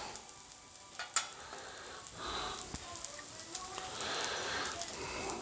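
Food frying on a Blackstone flat-top griddle, a steady sizzle with a few sharp clicks of a metal spatula against the griddle, the strongest about a second in.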